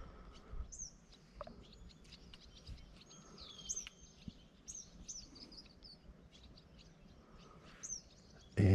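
Wild birds calling: several high whistled calls that slide downward in pitch, mixed with short chirps, over a faint outdoor background. A man's voice starts just before the end.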